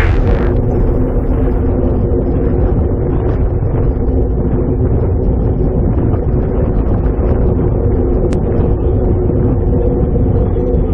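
Wind rushing over the microphone of a bike-mounted camera on a road bike moving at speed: a steady, loud low rumble with road noise mixed in.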